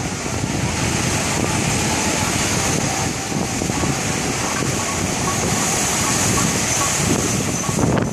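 Wind buffeting the microphone over waves washing up the beach, a steady dense noise, while a steam locomotive and its coaches run past behind the beach.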